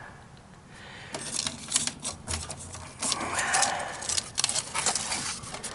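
A rapid, irregular series of clicks and rattles of hard objects being handled, busiest in the middle of the stretch.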